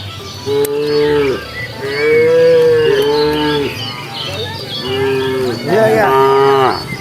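Several cows mooing, about five long calls in turn, two of them overlapping near the middle and another pair close together near the end.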